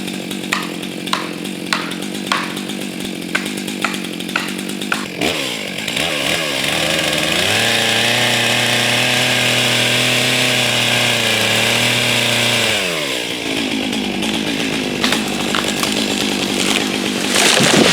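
Chainsaw idling under a series of sharp knocks, then revving up and holding full throttle for about five seconds while cutting through the tree trunk for the back cut of a plunge-cut felling, then dropping back to idle. A few more sharp knocks come near the end.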